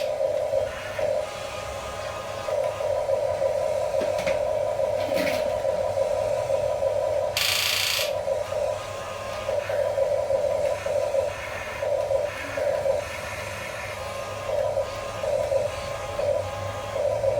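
Small electric gear motors of mini remote-control construction models whining in short on-and-off spells as the controls are worked, with a brief hiss-like burst about seven seconds in.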